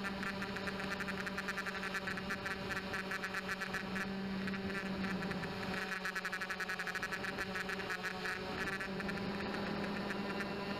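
Small Blade 200QX quadcopter's motors and propellers whirring in flight, heard through the onboard keychain camera's microphone: a steady hum with a fast flutter, easing a little just past the middle.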